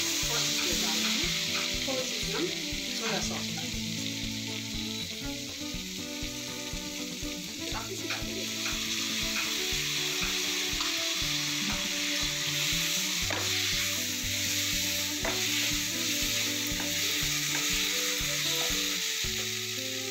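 Sliced onion, capsicum and green chilies sizzling steadily in hot oil in a frying pan, with a spatula scraping and knocking against the pan now and then as the vegetables are stirred.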